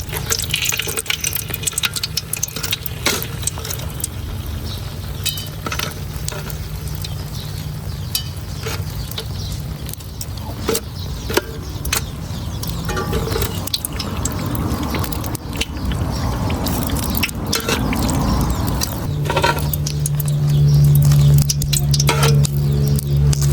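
Cooking clatter: utensils clinking against cookware and food being stirred, with a light sizzle. About nineteen seconds in, a steady low hum comes in and grows louder.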